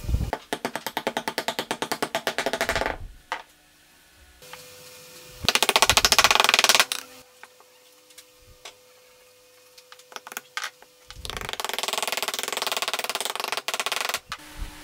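Hand-working a wooden finger-jointed box: three bursts of fast back-and-forth rubbing strokes on the wood, as in hand-sanding the joint, with a few single hammer taps just before the last burst.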